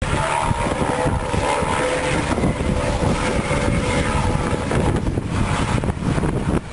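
Helicopter flying past at a distance, a steady engine and rotor drone, heard under a rough rumble of wind on the microphone.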